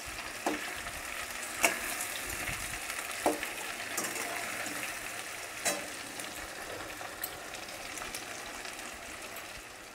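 Sliced onions and potato cubes sizzling in oil in a metal wok, with a metal spatula scraping and knocking against the pan now and then as they are stirred.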